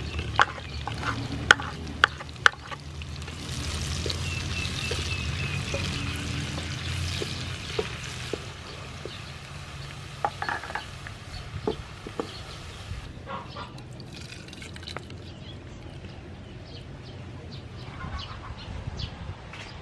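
Chopped green onion sizzling in hot soybean oil in a frying pan, with a wooden spatula knocking and scraping against the pan a few times in the first couple of seconds. The sizzle is loudest a few seconds in and dies away about two-thirds of the way through.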